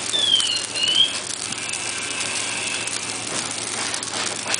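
Burn-crib fire crackling and hissing, with a brief high whistling tone that dips and rises again about a second in.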